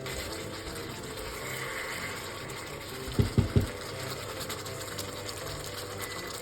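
Liquid sounds in a cooking pan under soft background music, with three quick knocks close together about three seconds in.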